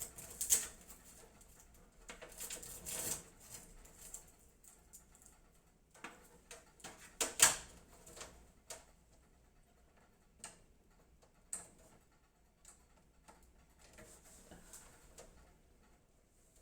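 Scattered small clicks and rustling of cables being handled while front-panel and USB 3 header connectors are fitted inside a PC case, with a sharper click about seven seconds in.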